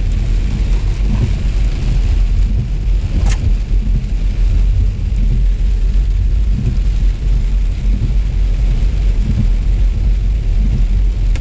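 Steady low rumble of a car driving, road and engine noise heard from inside, with a single sharp click about three seconds in.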